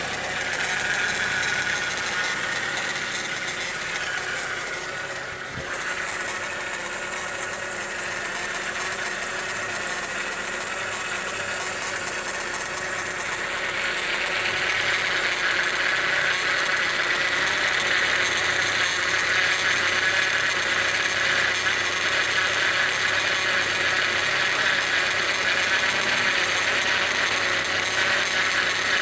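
2000 Ford Focus engine idling, with a steady high-pitched mechanical noise from the passenger side of the engine bay that grows louder about halfway through. It is an unexplained noise that the owner hears at idle and when turning the steering wheel, and suspects may come from the timing belt tensioner or the alternator.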